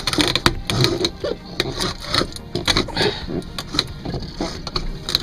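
The old hand crank of a Tanzer 22's swing-keel winch being turned, giving a run of irregular mechanical clicks and clatter. The keel cranks up but will not lower on its own.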